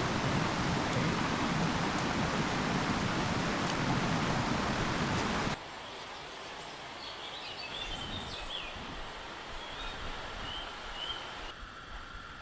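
Rushing river water, a loud, even hiss that cuts off abruptly about five and a half seconds in. A quieter stretch follows, in which a small bird gives a series of short, high chirps.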